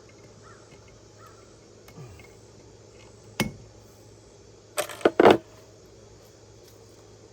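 Wire cutters snipping the electrical cable's wires to shorten them: one sharp snip, then three quick loud snips about a second and a half later. Faint crow caws in the background early on.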